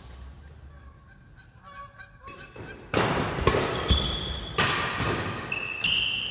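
Badminton rally: from about three seconds in, a series of sharp racket strikes on the shuttlecock, with high, held squeaks of court shoes on the hall floor.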